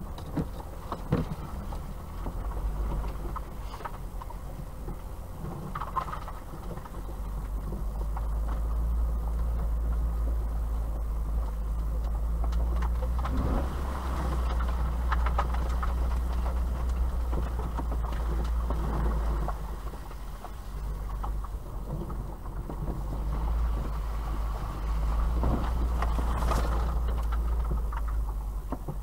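Vauxhall Astra Mk3 driving along a rough dirt track, heard from inside the cabin: a steady low rumble of engine and road noise that grows louder about eight seconds in, with occasional knocks as the car goes over bumps.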